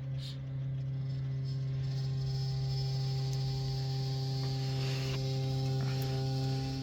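Hot water cylinder's primary heating coil humming: a steady low drone with a stack of overtones, set up by the heating water flowing through the coil too fast. It is the vibration noise that persists while the return gate valve is only partly closed.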